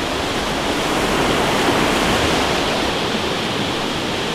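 Fast river rushing over rapids: a steady, even wash of white water.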